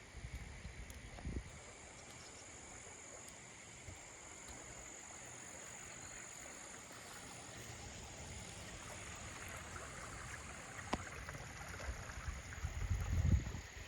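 Faint outdoor ambience with frogs calling, and short low rumbles about a second in and again near the end.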